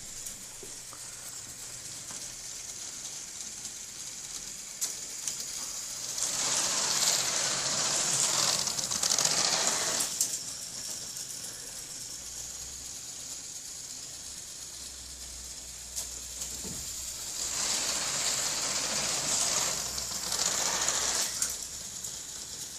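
LEGO Technic roller coaster running: a steady mechanical clatter from its lift, with the car rattling loudly along the plastic track twice, each run lasting about four seconds.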